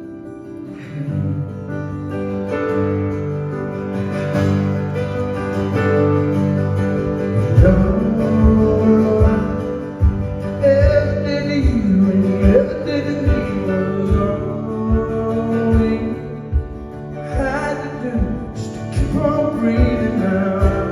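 Country band playing an instrumental passage of a slow ballad, with guitars holding sustained chords; a steady drum beat comes in about seven and a half seconds in.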